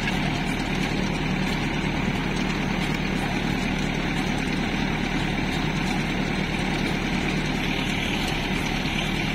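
Tractor engine running steadily while pulling a garlic planter through the field.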